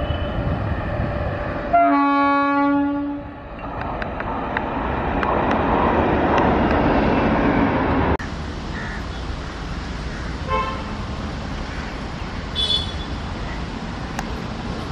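A train horn sounds, then a loud blast of about a second and a half, followed by an Indian Railways WAP-7 electric locomotive and its coaches passing close, a building rush of wheel and track noise. After a sudden cut, a quieter, steady rumble of another train approaching from a distance, with two brief faint tones.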